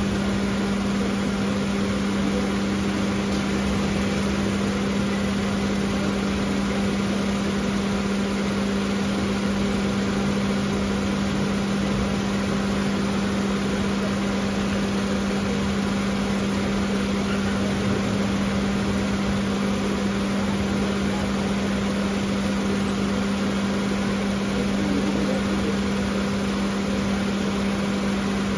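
Maruti Suzuki Celerio engine idling with the air conditioning running while the AC system is charged with refrigerant, giving a steady, unchanging hum.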